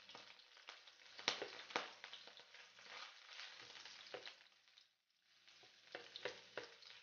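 Ginger-garlic paste sizzling in hot oil in a wok. It is stirred with a wooden spatula that scrapes and taps against the pan several times. The sizzle dies away for a moment about five seconds in.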